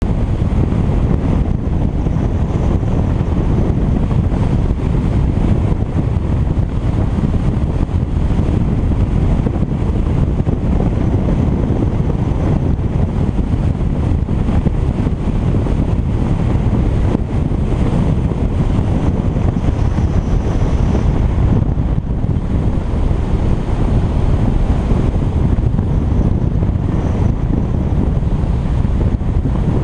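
Wind rushing over the microphone of a camera mounted on a hang glider in flight: a steady, loud, low buffeting of airflow with no let-up.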